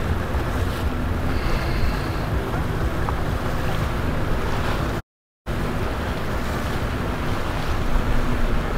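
Low, steady rumble of boat engines on the water, with wash and wind buffeting the microphone. The sound cuts out completely for about half a second roughly five seconds in.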